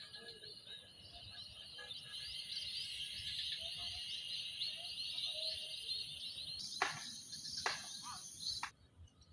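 Many small birds chirping at once over a steady insect drone, with a few sharp clicks in the last couple of seconds before the sound cuts off suddenly.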